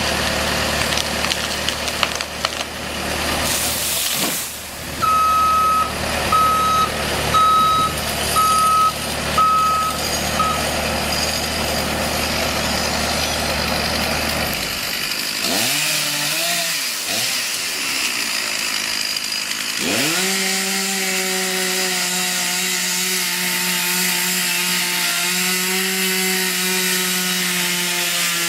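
Bobcat skid-steer engine running, with its reverse alarm beeping about six times a second apart. Then the engine stops, a chainsaw revs up and down, and it settles into a steady run, cutting wood.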